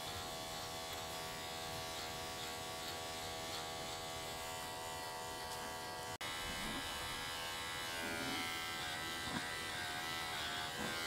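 Electric pet clippers with a 2 mm blade buzzing steadily as they shear through a Persian cat's dense, felted mats. The sound drops out for an instant about six seconds in.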